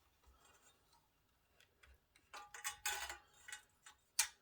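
Faint small clicks and rattles as a fan is fitted onto a CPU air cooler's heatsink, ending in one sharp click near the end.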